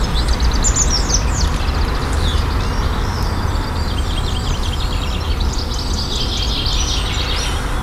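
Small birds chirping and singing in quick repeated calls, over a steady low rumble.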